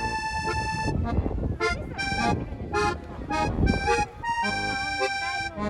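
Background music: a melody of short and longer held notes, over a low background rumble.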